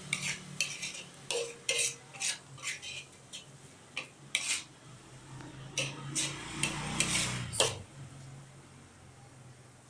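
Long metal spatula scraping and clinking against a stainless steel wok as scrambled egg and seasoning are stirred, a quick irregular run of scrapes and knocks that stops about eight seconds in.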